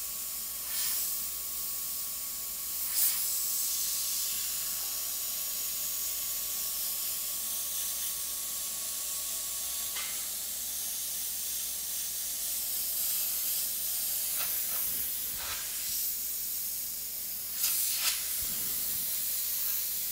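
Iwata HP-CS Eclipse gravity-feed airbrush spraying paint: a steady hiss of air and paint from the nozzle, with a few short surges in the hiss.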